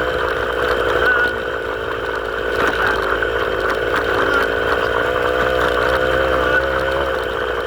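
A small engine running steadily, its pitch wavering a little.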